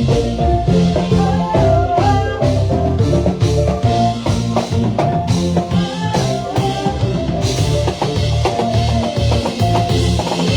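Live band playing at loud volume: a drum kit keeping a steady beat under a heavy bass line and melodic lines, during a sound check rehearsal.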